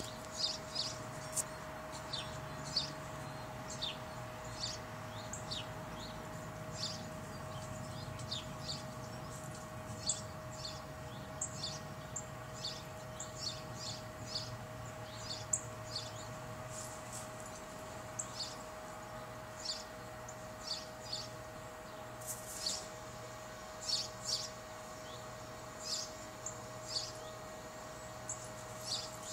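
Small birds chirping: short, high calls scattered irregularly, about one or two a second, over a steady faint hum.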